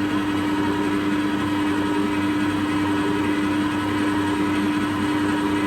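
Electric kitchen mixer's motor running at a constant speed: a steady, even hum.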